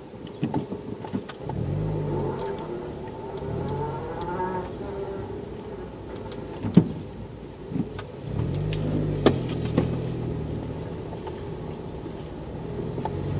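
Vehicle engine heard from inside the cab as it drives at low speed, speeding up in short pulls about two, four and nine seconds in. Light clicks and rattles come through, with one sharp knock about seven seconds in.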